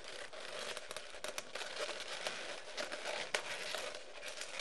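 Latex 260 modelling balloons rubbing against each other as two small ear-twist bubbles are twisted together by hand, with many small clicks and one louder click about three seconds in.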